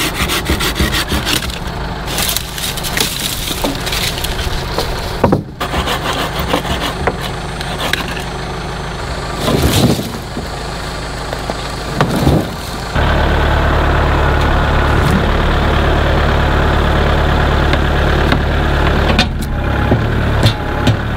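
Tractor engine idling steadily, with scattered knocks and scrapes of wood as oak rounds are pried at and shoved across a trailer bed. About 13 seconds in, the engine becomes suddenly louder and steadier.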